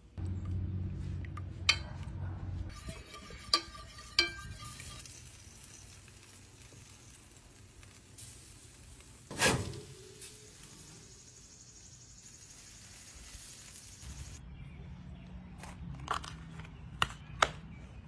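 Cooking sounds: a handful of sharp clinks and knocks of utensils and pans, with a louder knock about halfway, over a steady hiss through the middle stretch.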